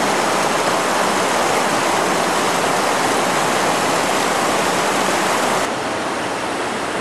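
A small cascade on a side branch of a mountain brook, water spilling over a rock ledge into a pool: a steady rush and splash that grows a little fainter near the end.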